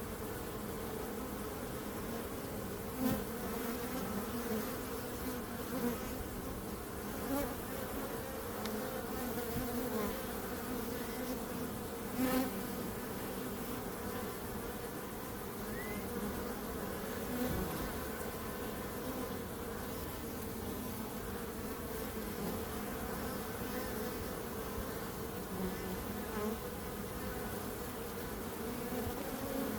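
Bees buzzing in a steady, dense hum, with a few faint clicks.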